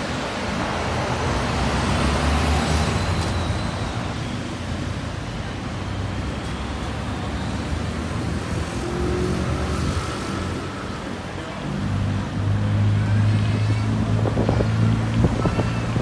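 City road traffic: cars passing on the road beside the pavement. A steady low engine hum sets in about three-quarters of the way through.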